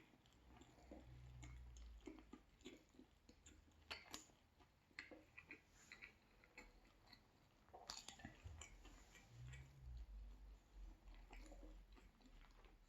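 Faint close-up chewing of a mouthful of pizza, with small wet mouth clicks scattered throughout and a brief low hum twice.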